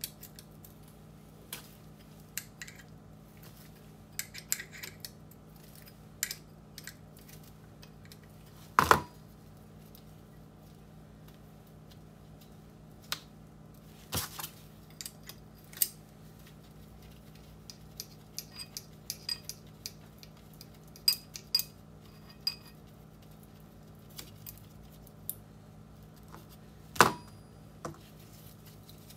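Steel starter parts and hand tools clinking and knocking against each other and the workbench while a starter's Bendix drive is taken apart. Scattered light clicks come through, with two louder ringing metallic clanks about nine seconds in and near the end.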